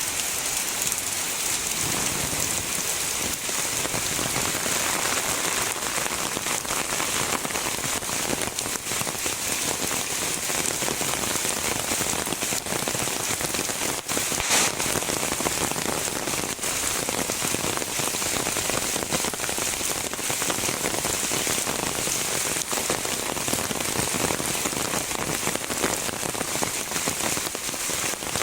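Heavy rain falling steadily, a dense hiss full of individual drop hits, with one sharper tick about halfway through.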